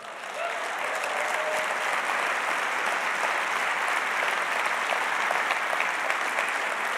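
Large auditorium audience applauding, swelling within the first half second and then holding steady.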